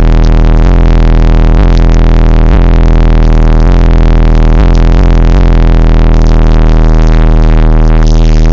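A pair of Digital Designs 9100 12-inch subwoofers play a deep, steady bass note inside the car. The sound is so loud that the phone's microphone distorts it into a buzzing wall of overtones, with sharp clicks about once a second.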